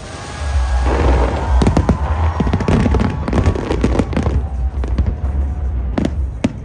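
Large aerial fireworks display: shells bursting in a rapid run of sharp bangs and crackles over a steady low rumble, thinning to a few single loud bangs near the end.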